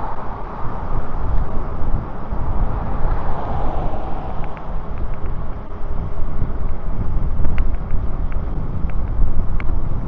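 Wind buffeting the microphone of a camera riding on a moving e-bike: a loud, uneven low rumble. A few faint short clicks come in the second half.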